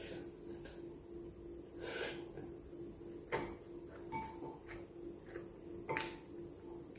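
Someone eating noodles with wooden chopsticks from a ceramic bowl: a series of sharp clicks as the chopsticks knock against the bowl, the loudest a little past three seconds and just before six seconds, with a short slurp of noodles around two seconds in. A faint steady hum lies underneath.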